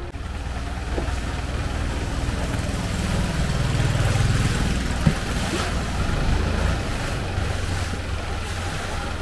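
Engine of a canal tour boat running steadily under way, a low drone with a wash of noise over it, and a brief knock about five seconds in.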